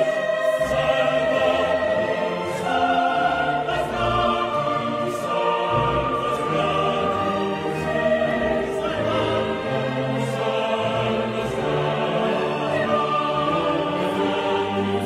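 Classical choral music with orchestra: a choir singing sustained chords that change every second or so.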